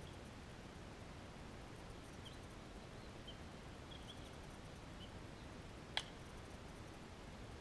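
A single sharp crack of a bat hitting a ball about six seconds in, the loudest sound, over low steady background noise. A few faint, short, high bird chirps are scattered through.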